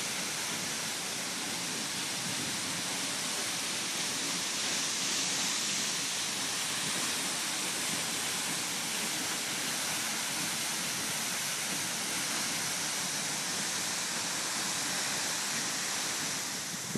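Seljalandsfoss, the 60-metre waterfall of the Seljalandsá river, pouring in a steady, unbroken rush of falling water.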